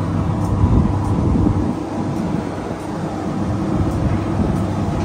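Steady low mechanical drone, holding several fixed low tones, over an uneven low rumble.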